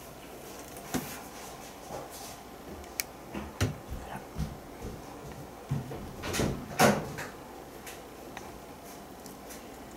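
A door being opened and handled: a series of sudden knocks, clicks and rattles, the loudest cluster about seven seconds in.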